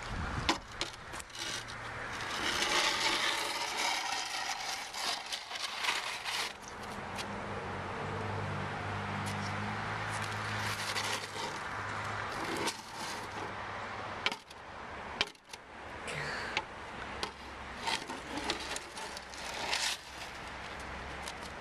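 Small snow shovel scraping and scuffing over wet asphalt and slush, with scattered knocks of the blade on the pavement.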